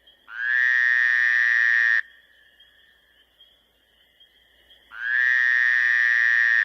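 Two long, loud animal calls, each about a second and a half and held at one pitch after a short rise, the second about five seconds after the first. A faint steady high drone, like insects, continues between them.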